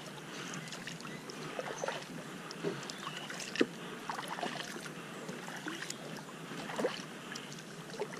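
Kayak paddling: water splashing and dripping as the paddle dips, with scattered small clicks and one sharp knock about three and a half seconds in.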